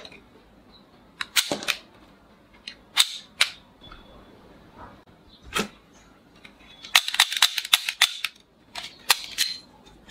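Sharp plastic clicks and snaps from a toy plastic revolver being worked and fired: single snaps spread through the first half, then a quick run of clicks about seven seconds in and a few more near the end as the cylinder is swung open.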